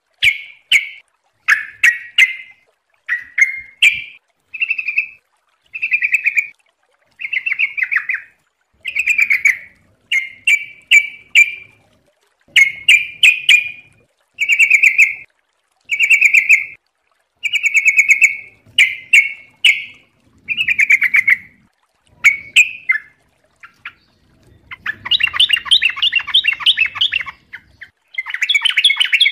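Yellow-vented bulbul singing in short, quick phrases, repeated roughly once a second with brief gaps between them. About 25 seconds in, the phrases run together into a denser, continuous chatter.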